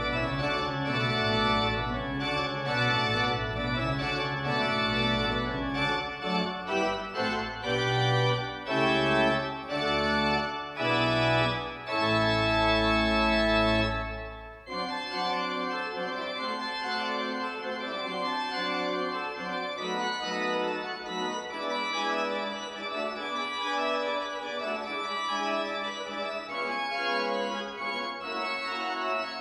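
Pipe organ playing full sustained chords over a deep pedal bass, changing chord every second or so. About halfway through the deep bass stops abruptly and the organ goes on more lightly with quicker-moving notes.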